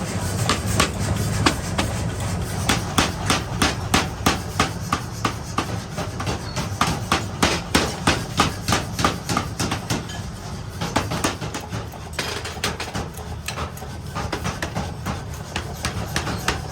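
Repeated hammer blows on steel during axe forging, about three strikes a second with a short lull partway through, over a steady low hum.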